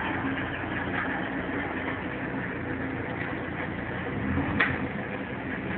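Forklift running with a steady mechanical hum while it manoeuvres, with a single short clunk about four and a half seconds in.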